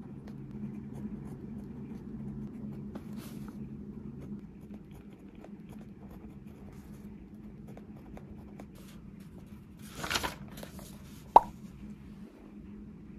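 Small indoor handling sounds: light clicks and taps over a low steady hum that stops about four seconds in, a short rustle about ten seconds in, then one sharp ringing clink of a hard object, the loudest sound.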